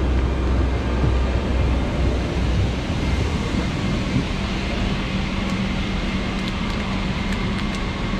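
Steady mechanical running noise with a low hum. About three seconds in, a steady higher drone sets in and holds.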